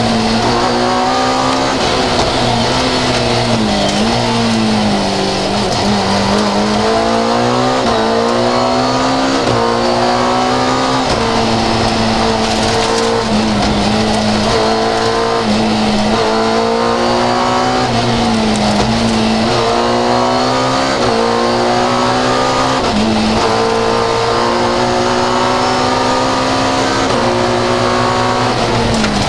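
Fiat 131 rally car engine heard from inside the cockpit, driven hard: the revs climb and drop again and again as the driver works through the gears, over steady road and tyre noise.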